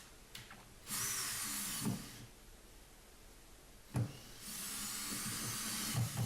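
Electric drill running in two short bursts of about a second and a half each, its bit boring a recess into plasterboard, with a click between the bursts.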